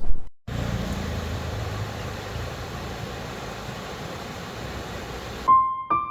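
Steady, even rushing noise with no clear source. Piano music comes in near the end.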